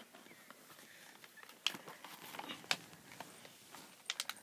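Faint handling of plastic toy packaging: scattered small clicks and rustles as it is pulled and pried at. The clearest clicks come a little before the middle and about two-thirds through, with a quick run of clicks near the end.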